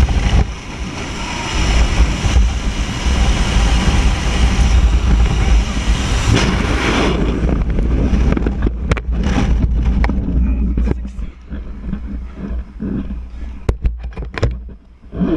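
Loud wind buffeting the microphone as a paratrooper drops out of a C-130 Hercules's door, with a heavy low rumble. After about seven seconds it eases into softer, gusty rushing with scattered sharp flaps and snaps as the T-11 parachute canopy opens and fills.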